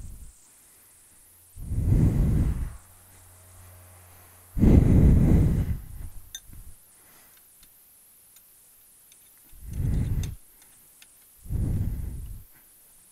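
Low rumbling bursts on the microphone, each about a second long, coming four times with the tail of a fifth at the start, such as wind or jostling gives an action camera. A few faint clicks fall between them.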